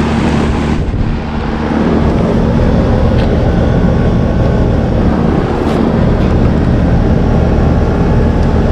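Several outdoor central air-conditioner condensing units running: steady fan rush over a low compressor hum, with a short dip in level about a second in.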